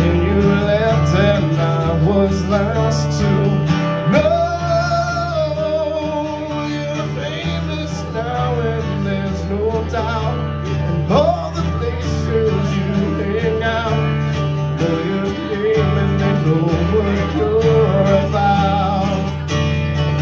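A man singing a song while strumming an acoustic guitar, his voice carrying the melody over the chords throughout.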